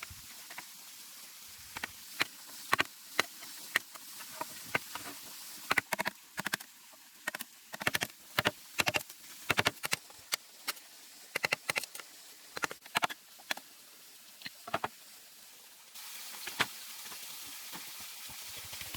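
Irregular sharp knocks and taps, some in quick clusters, over a faint steady hiss that gets louder near the end.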